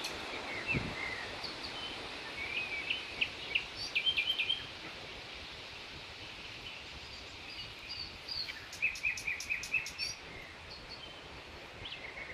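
Small birds chirping and calling in short rapid series, busiest a couple of seconds in and again around two-thirds of the way through, over a steady outdoor background hiss.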